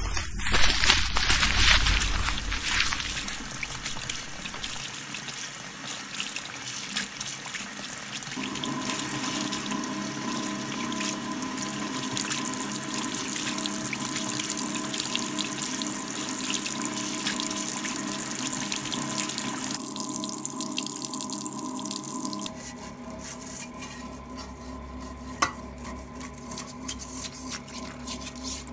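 Water running steadily into a sink and down its drain, with a steady hum of several tones joining about a third of the way in. Near the end the rushing water drops away, leaving the hum and scattered small clicks and drips.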